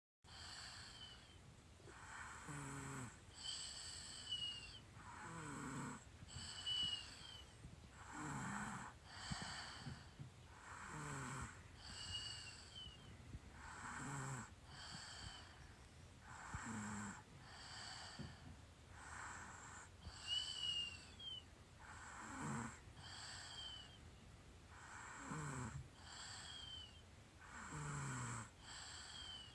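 A sleeping baby snoring softly and rhythmically, one breath about every three seconds, each snore dropping in pitch with a faint whistle on top.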